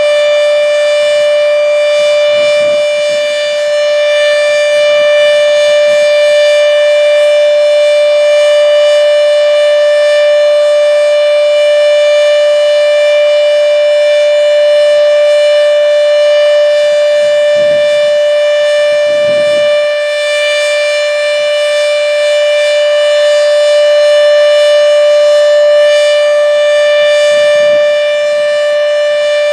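H.O.R. Siro Drone outdoor warning siren sounding its steady alert signal: one loud, unwavering tone with many overtones, holding the same pitch throughout.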